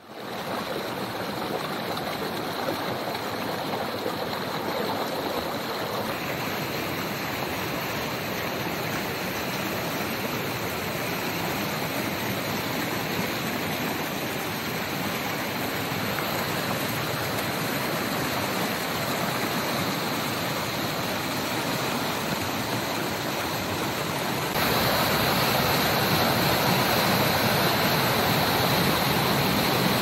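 Man-made waterfall: water rushing and falling in a steady, even roar, which gets louder about 24 seconds in.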